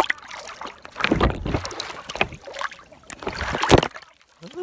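Sea water splashing and sloshing close to the microphone, in two strong surges, one about a second in and another near the end.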